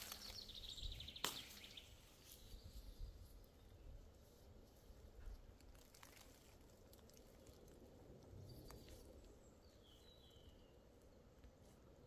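Quiet spring woodland ambience, near silent: a few soft footsteps in the first couple of seconds, then faint, sparse bird calls over low background noise.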